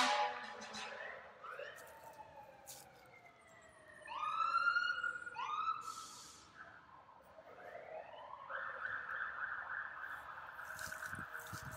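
Several fire truck sirens sounding together. Slow falling wails give way to two short rising whoops about four and five and a half seconds in, then a wail that rises and holds steady from about eight and a half seconds on.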